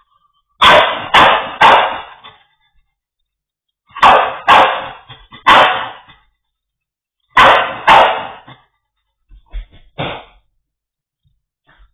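Dog barking loudly from inside a wire crate in clusters of two or three barks with short pauses between, and a few fainter barks near the end. The sound is thin and cut off at the top, as through a security camera's microphone.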